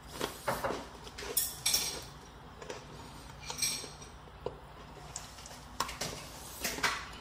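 Someone biting into and chewing a Marvel Avengers chocolate chip cookie: a series of irregular crunches, clustered in the first two seconds and again near the end.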